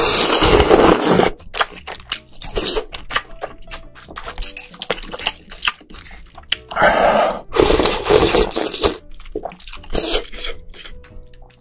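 A person slurping octopus ramen noodles and broth close to the microphone: four loud slurps, one at the start, two in the middle and a short one near the end, with wet chewing clicks and mouth noises between them.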